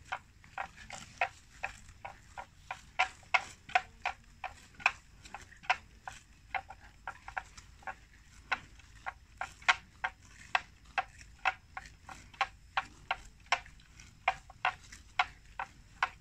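Water buffalo grazing, tearing off mouthfuls of grass in an irregular series of sharp snaps, about two or three a second.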